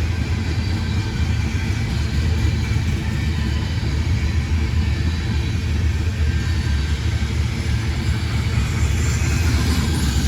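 Steady low rumble of a heavy vehicle in motion, with an even hiss above it and no break.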